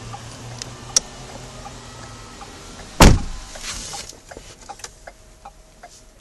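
Ford Explorer's 3.5 L V6 idling with a low steady hum, then one loud thump about three seconds in as the driver's door shuts, after which the engine is muffled and a few light clicks follow.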